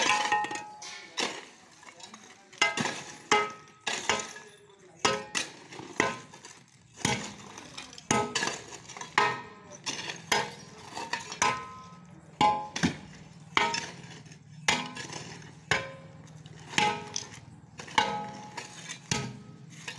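Metal tools, a long iron bar among them, striking broken stone and concrete rubble while a road pothole is being packed and repaired. Irregular clanks, about one a second, each with a brief metallic ring.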